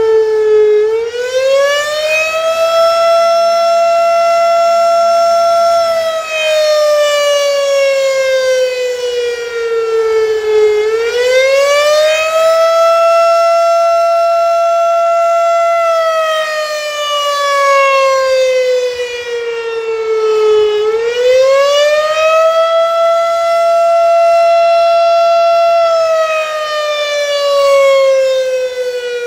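Federal Signal RSH-10 Thunderbeam rotating outdoor warning siren sounding the attack signal: a loud tone that rises over about two seconds, holds for a few seconds, then slides slowly down, repeating about every ten seconds, three times over.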